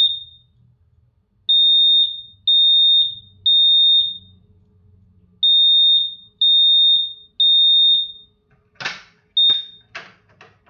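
Gentex GX93 mini horn sounding a temporal-3 evacuation pattern: two sets of three short high-pitched blasts, each set followed by a pause, ear-piercing. A few sharp knocks follow near the end.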